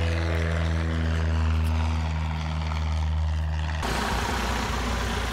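Light propeller airplane engine giving a steady, even drone. About four seconds in it cuts abruptly to a Piper Cherokee taxiing close by, its engine and propeller at low power under a rough, broad hiss.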